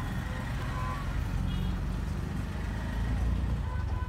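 Auto-rickshaw engine running with a steady low rumble, heard from inside the open-sided cab amid street traffic. There are two brief faint beeps about one and one and a half seconds in.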